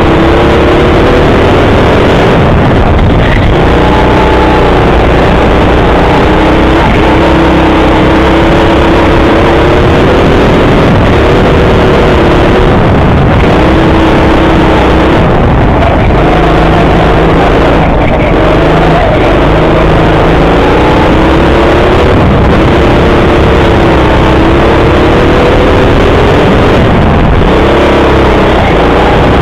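Go-kart motor heard from the driver's seat, its pitch rising and falling every few seconds as the kart speeds up out of corners and slows into them. A loud, steady rumble runs underneath.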